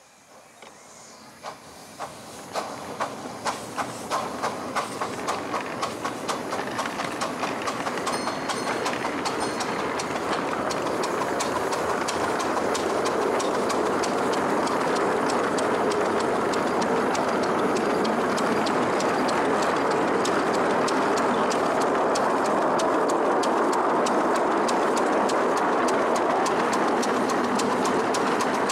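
Miniature steam locomotive and train drawing away and running. Its exhaust chuffs start about two a second, quicken and grow louder over the first ten seconds, then merge into a steady loud rush with rapid wheel clicking on the rails.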